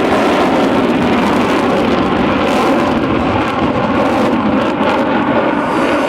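Loud, steady jet engine noise from F-15C Eagle fighter jets flying overhead.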